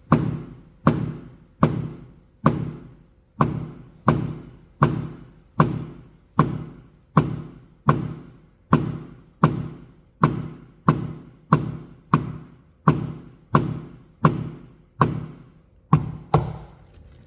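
Paintless dent repair hammer and knockdown tool tapping on an aluminium car hood, a steady series of about twenty-three evenly spaced sharp knocks, a little more than one a second, knocking down raised metal around the dent.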